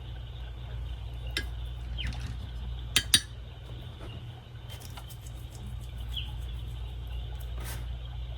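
Painting tools clinking against a hard palette or cup while gouache is swatched. There is a loud pair of clinks about three seconds in and a few lighter clicks, over a steady low hum. A few faint short falling chirps come through too.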